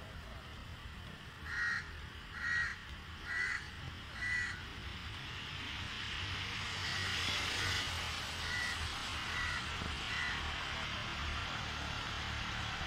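A crow cawing four times, evenly spaced about a second apart, then a fainter run of five caws over a steady outdoor hiss.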